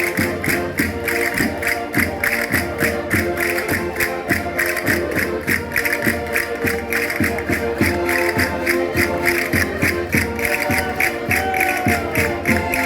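Concertinas playing a lively dance tune in held, reedy chords, over a fast steady beat of about four strikes a second.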